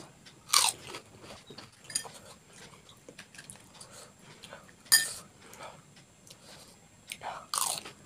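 Crisp puffed puri shells of panipuri cracking and crunching, with wet chewing in between. Sharp cracks come about half a second in, about two seconds in, around five seconds in, and twice close together near the end.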